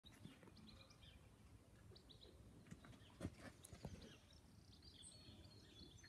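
Near silence with faint, scattered high chirps of small birds, and two soft knocks about halfway through, half a second apart, the first the louder.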